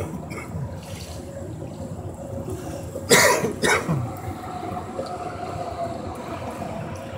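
A person coughs twice in quick succession about three seconds in, over a steady low rumble.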